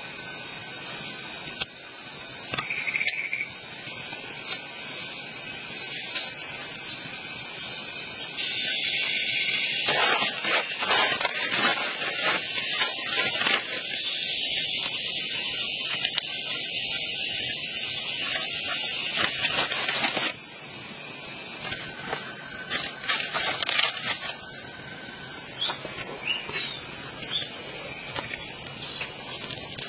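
Insects shrilling steadily in a continuous high-pitched chorus. From about a third of the way in until two-thirds through, rustling and scraping of leaves, sticks and soil being handled is heard over it.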